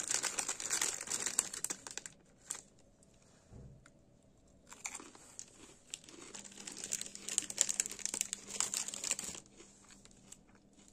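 A plastic snack packet crinkling as it is torn open for about two seconds. After a pause, crisp crunching of a crunchy Kurkure corn snack being chewed runs for several seconds.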